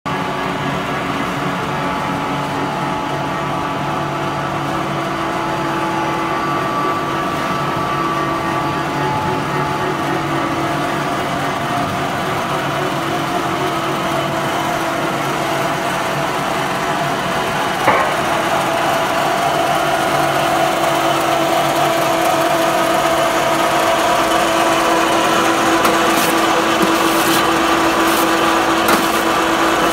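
EPE foam recycling and pelletizing line running: the crusher, extruder and pellet cutter motors give a steady machine drone with several held tones. There is one sharp knock about 18 seconds in and a few short ticks near the end.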